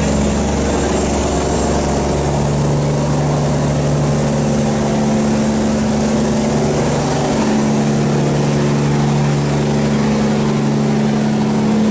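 Diesel engine of a loaded sand barge running steadily as the barge passes close by, its note shifting slightly about two seconds in and again past the middle.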